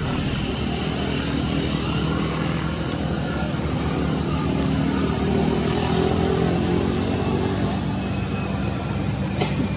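Steady low rumble of a running motor vehicle engine or road traffic, its pitch wavering slightly, with short high chirps every second or so.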